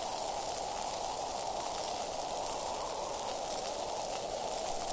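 Steady, unbroken rush of beach ambience: distant surf breaking, heard as an even hiss.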